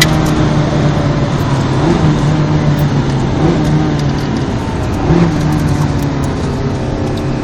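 Ferrari 430 Scuderia's V8 running at low, steady revs, with three brief small rises in pitch about every second and a half.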